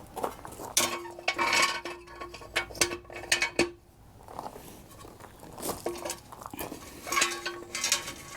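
Metal clanking and rattling as a jack is handled and worked to lift a mower, with short ringing tones, in two spells with a quieter gap between them.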